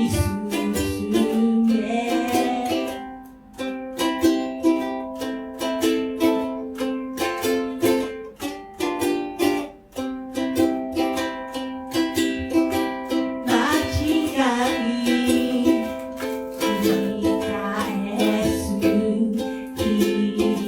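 Ukulele played with strummed chords in a steady, even rhythm.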